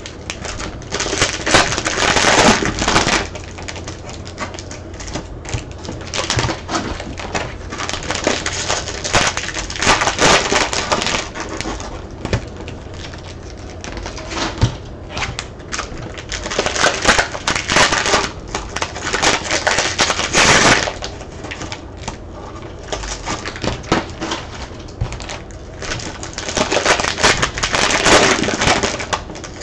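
Trading-card pack wrappers being crinkled and torn open, with cards riffled and shuffled, in repeated bursts of crackling and clicking a few seconds long.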